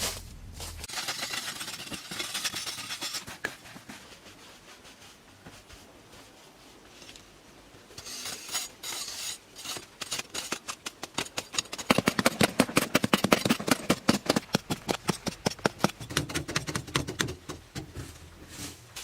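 Repeated scraping strokes, softer and uneven in the first few seconds, then a fast steady run of about five strokes a second that grows loudest near the middle and eases off before the end.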